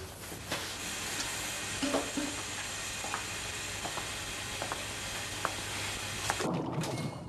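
Tap water running into a stainless steel sink: a steady hiss with scattered small clicks and clinks. The hiss cuts off abruptly about six and a half seconds in as the tap is turned off, leaving a short low rumble.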